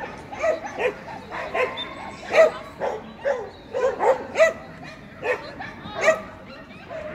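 A dog barking over and over in short barks, about two a second in an uneven rhythm, with voices in the background.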